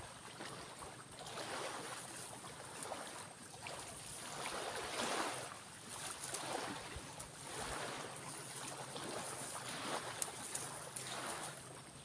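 Sand being dug and scraped away around a santigi's roots: a rhythmic rough rushing, about one stroke a second, with a few faint clicks.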